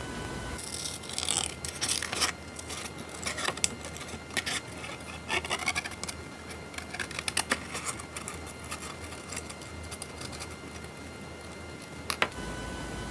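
Scissors cutting a sheet of paper: irregular runs of crisp snips with paper rustling, ending in two sharp snips near the end.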